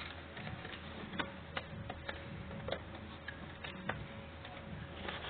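Light metallic clicks and taps of tools and parts being handled during disassembly of a mobility scooter, about seven at uneven intervals, over a steady low hum.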